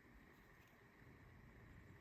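Near silence: faint room tone with a light steady hiss.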